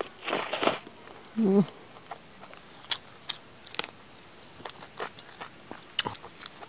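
Close-miked mouth sounds of eating rice and chicken curry by hand: a noisy bite in the first second, then wet chewing clicks scattered through the rest, with a short hummed "mm" about a second and a half in.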